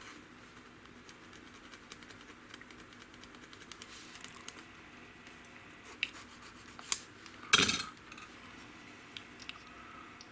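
Light, rapid scratching of a small plastic model part being sanded, followed by a few clicks and one sharper knock about three quarters of the way through as the part is handled and set down.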